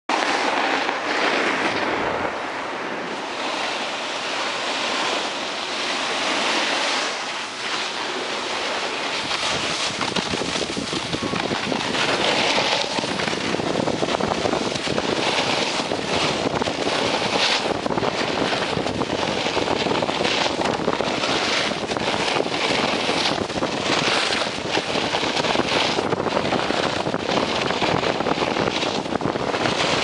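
Snowboard sliding and carving down groomed snow: the board's edge scraping and hissing on the snow, mixed with wind buffeting the microphone. The scraping swells and fades with the turns, more often in the second half.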